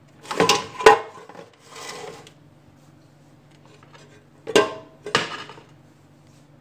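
Clatters and clunks of an air fryer's pull-out basket being handled, in two groups: a few sharp knocks with a scraping rub about a second in, then two more clunks near five seconds.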